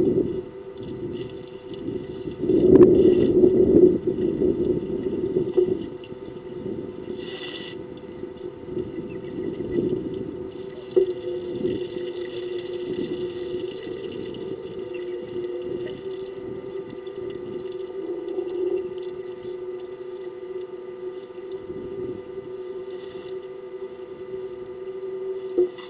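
Outdoor waterhole sound while African elephants drink: a steady hum with rushing noise that swells loudest about three seconds in, and now and then short sounds of water as the elephants draw and lift it with their trunks.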